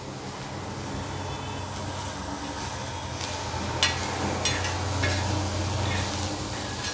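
Steel spatula stirring and scraping roasted green chillies, garlic and peanuts across a hot tawa, with a few sharp scrapes about four seconds in and a light sizzle, over a low steady hum.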